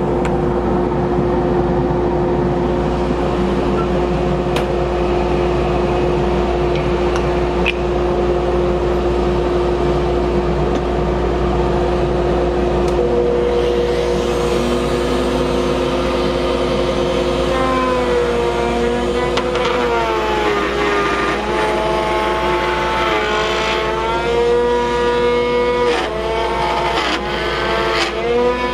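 Table-mounted router running with a steady motor hum. From about halfway in, its pitch wavers and dips again and again as a wooden blank is fed across the bit to rout a channel.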